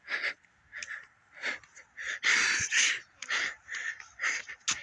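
A person panting hard close to the microphone: short, breathy huffs about twice a second, loudest a little past the middle.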